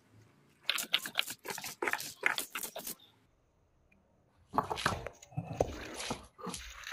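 Garlic being ground to paste on a flat grinding stone with a cylindrical stone roller (shil-pata): a run of quick grinding strokes, a pause of about a second and a half near the middle, then more rolling strokes.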